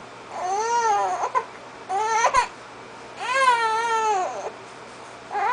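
Infant girl fussing on her tummy: three short, rising-and-falling cries spaced about a second apart, with a fourth beginning near the end.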